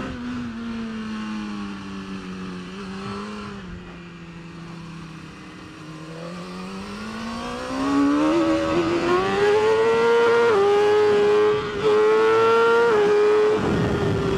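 BMW S1000RR superbike's 999cc inline-four engine heard onboard: the revs sag through a corner, then climb hard under full throttle, getting louder, with quick upshifts about ten and twelve seconds in. The engine note drops away near the end.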